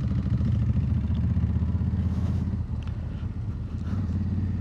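Honda Africa Twin's 1100 cc parallel-twin engine running as the bike rides off, a steady low drone that dips briefly a little past halfway and then picks up again.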